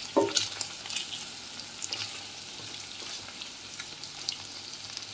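Paneer cubes shallow-frying in hot oil in a nonstick kadhai, with a steady sizzle and scattered crackling pops, stirred with a wooden spatula.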